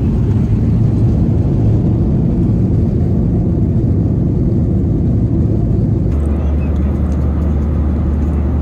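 Jet airliner cabin noise heard from a window seat: a loud, steady low rumble of the engines and airflow. About six seconds in it changes abruptly to a steadier low drone, as in flight.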